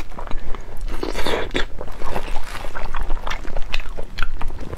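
Close-miked chewing of a soft, chewy pork skin roll, with many small wet mouth clicks and smacks.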